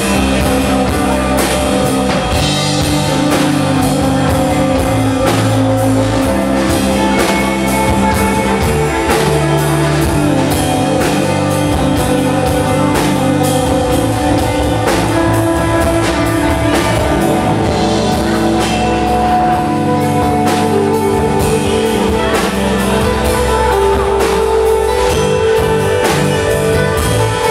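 Live rock band playing a song on electric guitar, electric bass and drum kit, with a steady drumbeat throughout.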